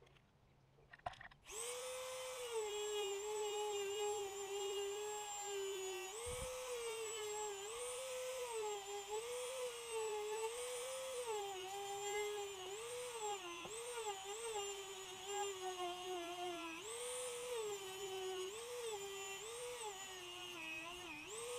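Dremel rotary tool grinding down the edge of a Lexan polycarbonate window panel, starting up about a second and a half in. It gives a high whine whose pitch keeps dipping and recovering as the bit bites into the plastic and eases off.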